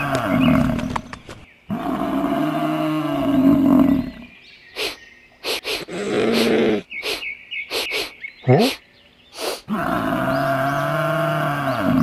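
A long, deep animal call, the same call sounding three times over, each falling in pitch at its end. Between the second and third come a string of short clicks and taps and a quick rising sweep.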